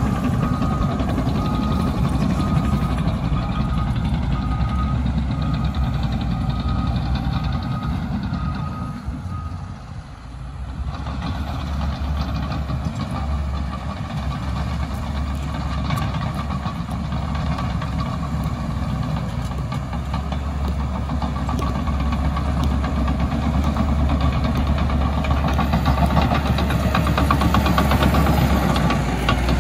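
Cat D6K bulldozer's diesel engine running under load, with its backup alarm beeping steadily for roughly the first ten seconds as it reverses. The engine sound dips briefly about a third of the way in, then builds back up and runs on strongly.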